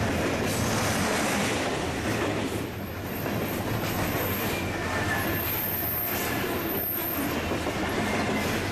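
A freight train of covered grain hopper cars rolls past close by, its steel wheels making a steady rumble on the rails. Thin, faint, high squeals of wheels on rail come in about halfway through.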